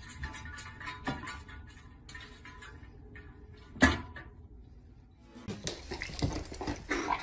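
Cat's claws and paws tapping and scraping on a glass tabletop, with one sharp knock against the glass about four seconds in. A stretch of louder, mixed scuffling noises follows near the end.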